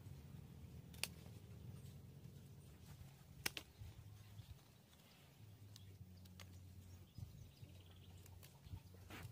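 Pruning shears snipping through an orange-tree stem: two sharp clicks, about a second in and about three and a half seconds in, with a few fainter clicks later, over a faint low hum.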